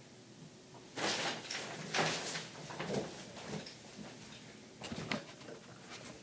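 Several short scraping, rustling movement sounds, about a second apart, with a brief pause before the last ones; the small room gives them a slight echo.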